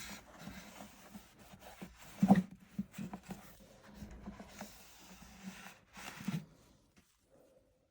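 Scrubbing and rubbing noises from cleaning a front-loading washing machine's rubber door seal, with two louder bumps, one a couple of seconds in and one near the end.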